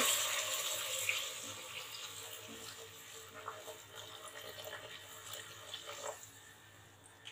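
Chicken broth poured from a bowl into a pot of sautéed peppers and tomato paste: a steady splashing pour, loudest at the start and growing fainter as the pot fills.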